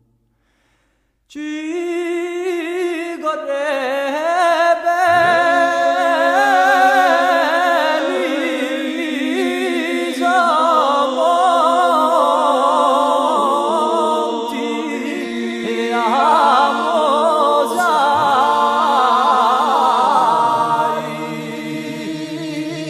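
Unaccompanied vocal music: several voices singing together in harmony, with held, wavering notes, starting about a second in after a brief silence.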